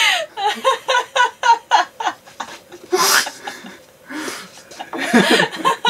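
People laughing: a quick run of short ha-ha pulses, then breathy gasps of laughter and a few more bursts near the end.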